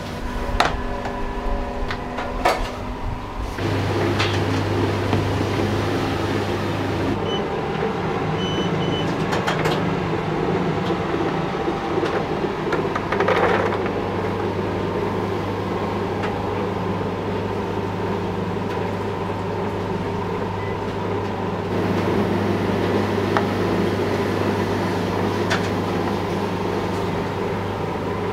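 Electric udon noodle-cutting machine running with a steady hum as a sheet of udon dough is fed through its rollers and cutter. A few sharp clicks come just before the hum sets in, about three and a half seconds in.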